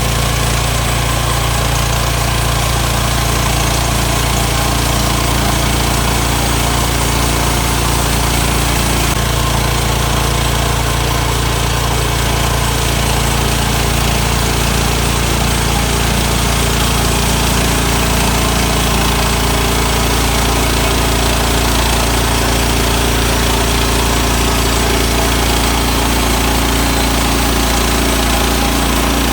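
Gas engine of a Woodland Mills band sawmill running steadily under load as the blade cuts a pine board.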